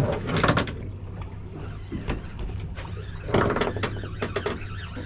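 Boat's outboard engine idling with a steady low hum, broken by two louder bursts of noise, one about half a second in and one a little past the middle.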